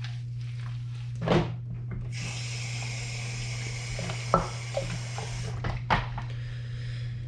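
Water tap running into a sink for about three seconds, then shut off abruptly. A few short knocks come before, during and after, under a steady low hum.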